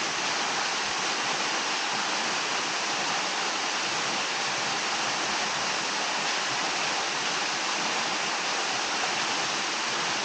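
Small waterfall splashing into a pool: a steady rush of falling water close by.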